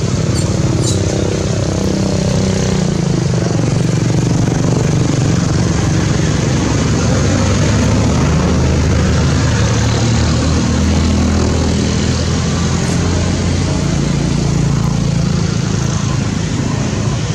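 An engine running steadily: a continuous low drone.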